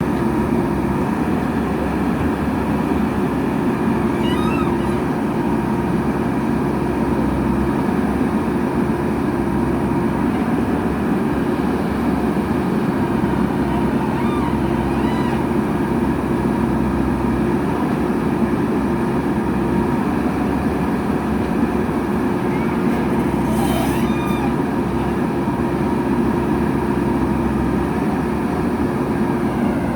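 Diesel engine of a JCB backhoe loader running steadily under work, with a few brief high squeaks along the way.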